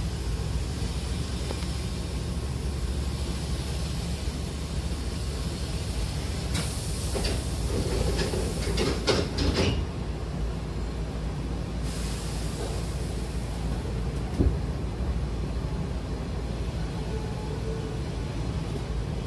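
Hankyu train car's wood-grain double sliding doors closing: a hiss and then a run of clunks as the leaves slide shut and meet, about seven to ten seconds in. This happens over the steady hum of the stopped train car, and a single sharp thump follows a few seconds later.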